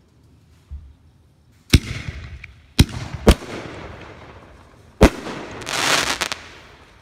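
Aerial fireworks going off: a dull low thump, then four sharp bangs of bursting shells over the next few seconds. A dense crackle follows near the end.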